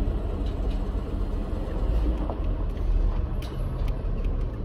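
Steady low rumble of a car driving, engine and road noise heard from inside the cabin, with a few faint clicks.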